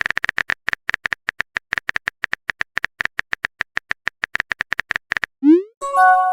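Phone keyboard typing sound effect: rapid, even taps. A little after five seconds there is a short rising swoosh of a message being sent, and near the end a bright chime of several tones as a new message arrives.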